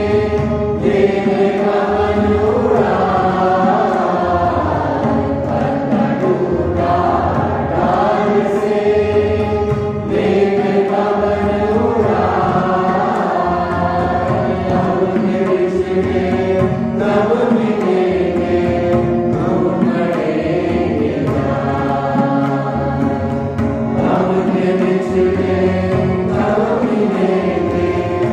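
A group of voices singing a slow chant in long held notes that slide from one pitch to the next.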